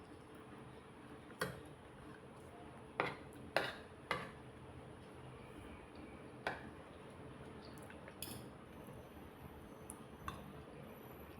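An eating utensil clinking against a plate or bowl, about seven sharp irregular clinks, the loudest three close together a few seconds in.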